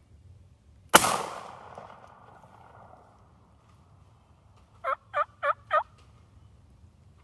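A sharp bang about a second in that echoes and fades over a couple of seconds, then four quick rising-and-falling calls of a wild turkey gobbler near the end.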